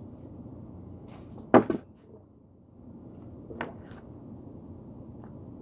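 A sharp double clunk about one and a half seconds in, then a lighter knock two seconds later, from things being handled around a kitchen stove, over a steady low hum.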